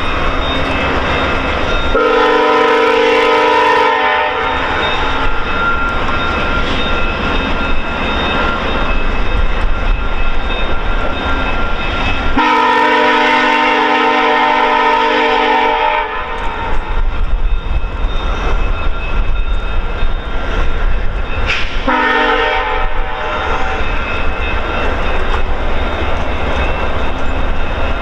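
Horn of VIA Rail's GE P42DC locomotive 901, sounding two long blasts and then a short one, the pattern of the long-long-short-long grade-crossing signal, as the train pulls away. Under the horn is the steady low rumble of the passenger coaches rolling over the rails.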